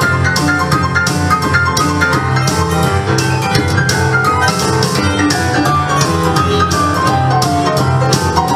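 Music: a fast keyboard melody played in quick runs of notes, over a steady bass line and a drum beat.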